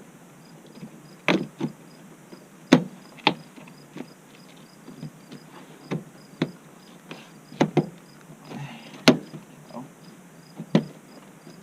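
A dozen or so irregular sharp clicks and knocks of plastic trim around the battery being fitted back, its tabs snapping into place. A faint, evenly repeating high chirp of crickets runs underneath.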